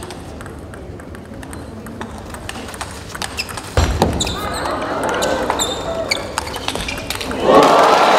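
Table tennis rally: the plastic ball ticking off bats and table, a heavy thud about four seconds in, then raised crowd voices, with applause breaking out loudly near the end as the point is won.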